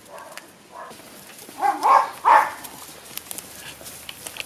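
Jack Russell Terrier puppies barking while they play-fight, with two loud short barks close together about two seconds in and fainter yips before them.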